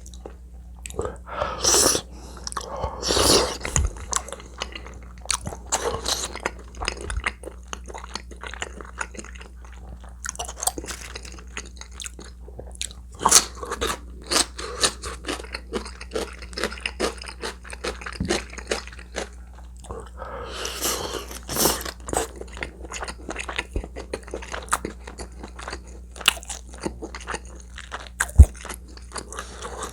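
Close-miked eating: a person chewing and biting food, a dense, irregular run of short wet clicks and smacks, with a few louder bites about two and three seconds in and again around twenty-one seconds.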